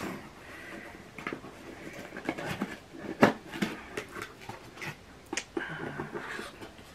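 Packaging rustling and clicking as a box is opened and its contents unwrapped by hand, with one sharp click about three seconds in.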